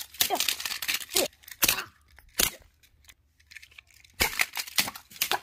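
Toy cars being grabbed, moved and knocked together on a carpet: a run of clicks and clacks, a quiet stretch in the middle, then more clattering and rustling near the end.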